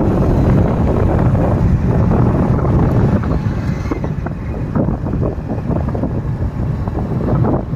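Strong wind buffeting the microphone of a phone filming from a moving vehicle, over a steady low road-and-engine rumble.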